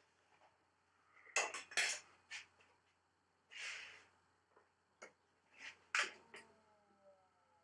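Racquet-stringing machine at work: sharp clicks and clacks of clamps and tools, and a short swish of string being pulled through the frame about halfway. Near the end comes a faint whine that falls in pitch, as the electronic tensioner draws the string up to tension.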